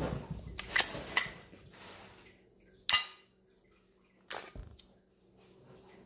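Glock 17 BB pistol giving several sharp clicks and snaps at uneven intervals, the loudest about three seconds in.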